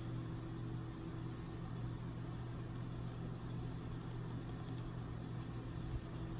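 Steady low mechanical hum, as of a small motor or appliance running, made of a few unchanging low tones.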